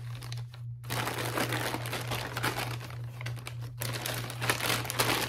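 Plastic bag crinkling and rustling as it is handled. The sound starts about a second in and runs on with a brief break near the end.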